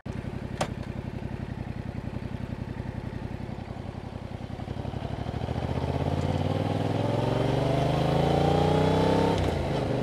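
2021 Yamaha MT-07's parallel-twin engine through its original exhaust, with a single click shortly after the start. The engine runs steadily at low revs for about five seconds, then the revs climb as the bike pulls away. There is a brief dip near the end, like an upshift, before it pulls on.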